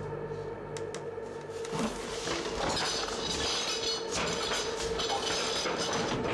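Commotion at a dinner table as a man chokes and collapses: dishes and cutlery clatter from about two seconds in, over a steady, sustained film-score drone.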